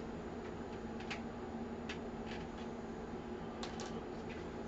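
A few light, scattered clicks and ticks of small hard parts being handled during a PC build, over a steady low hum.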